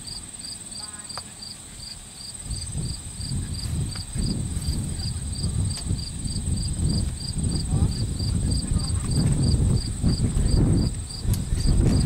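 Insects calling in the field: a high chirp pulsing evenly about three times a second over a steady, higher continuous trill. From about two and a half seconds in, a louder low rumble on the microphone comes in and stays.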